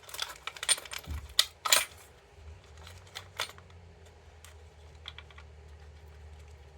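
Small metal clicks and taps from handling a mortise lock cylinder and its parts during disassembly, several sharp ones in the first two seconds, then lighter scattered clicks.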